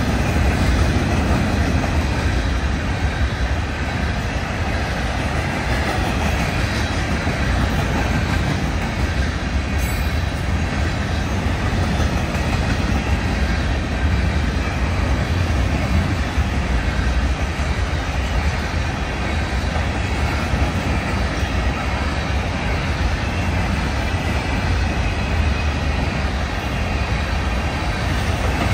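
Florida East Coast freight train of empty rock hoppers and gondolas rolling past, its steel wheels running on the rails in a steady, continuous rumble that is heaviest in the low end.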